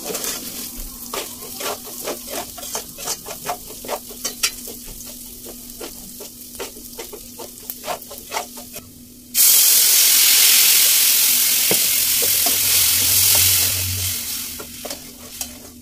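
Rice frying in an enamel pot, a metal spoon scraping and clicking against the pot as it is stirred. About nine seconds in, a blended tomato mixture goes into the hot pot with a sudden loud sizzle that eases off near the end.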